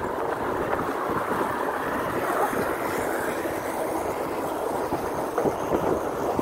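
Steady rush of wind on the microphone while a mountain bike rides along a paved street, mixed with road noise.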